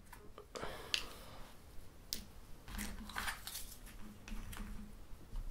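Soft clicks and light scrapes of cardboard game tiles and small scoring cubes being picked up, slid and set down on board-game player boards, a handful of separate handling sounds.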